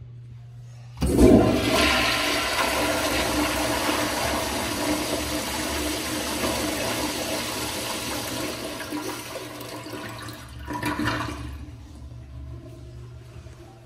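Commercial flushometer toilet with an American Standard bowl flushing: a sudden loud rush of water starts about a second in and runs on for about ten seconds, slowly fading, with a brief swell near the end before it stops.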